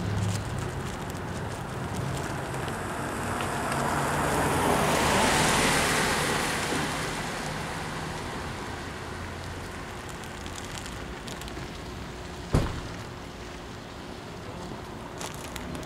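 A car passes close by on the street, its tyre and road noise swelling to a peak about five seconds in and then fading as it drives away. A single sharp knock near the end.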